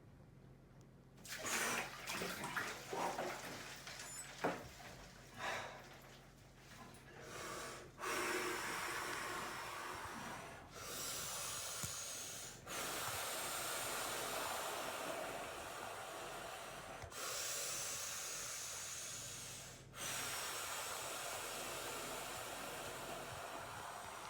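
A person in an ice bath breathing hard against the cold: short gasps and sharp breaths at first, then a run of long, drawn-out breaths a few seconds each.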